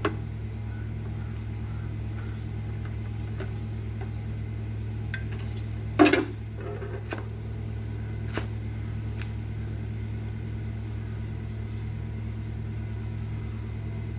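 Steady low electrical or machine hum, with a few light knocks and one loud wet slap about six seconds in as live fish are lifted out of a metal pot by hand.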